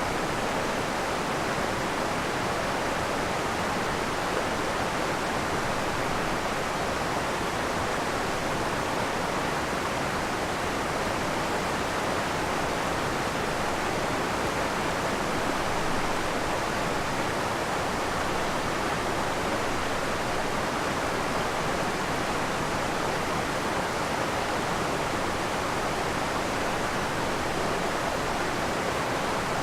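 Waterfall and creek water rushing in a steady, even roar.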